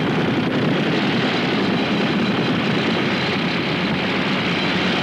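Rock-drilling machinery running, a steady, loud mechanical din with no breaks.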